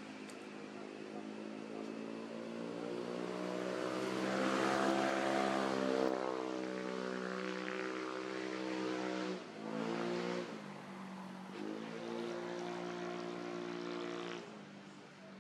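A motor vehicle's engine running. It gets louder and higher in pitch to a peak about five seconds in, drops and picks up again twice, then fades near the end.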